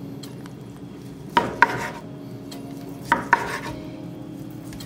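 Chef's knife slicing through smoked pork belly and knocking on a wooden cutting board: two pairs of sharp knocks, one pair about one and a half seconds in and another about three seconds in.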